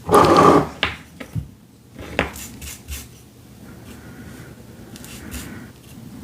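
A short burst of rustling at the start, then several light clicks and taps as collage materials and tools are handled while gluing paper.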